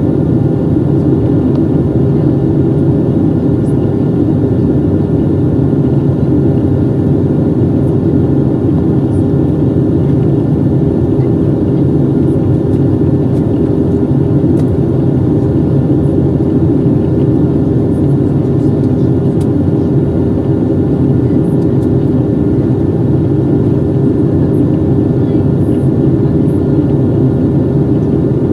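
Steady in-flight cabin noise of a Southwest Airlines Boeing 737-700, heard from a window seat over the wing: the drone of its CFM56-7B turbofan engines and rushing air, a constant low hum with a few steady tones running through it.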